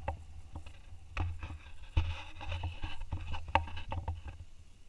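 Handling noise from a handheld camera being turned, with rustles and scattered knocks, the sharpest about two seconds in, over a low rumble of wind buffeting the microphone.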